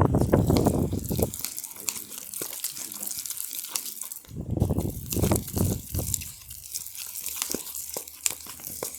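Glue and slime activator being mixed inside a lidded plastic container: two spells of dense squelching, rattling noise, one at the start and one about four seconds in, with scattered clicks and crinkles between them.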